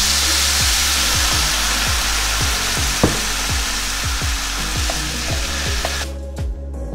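Red wine hitting a hot pan of sautéed mushrooms and onions and sizzling hard as the pan is deglazed. The sizzle cuts off abruptly about six seconds in, with a single sharp knock about halfway through. Background music with a steady beat plays underneath.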